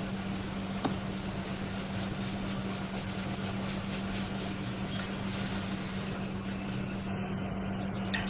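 Steady low electrical hum over an even hiss, with one faint click about a second in.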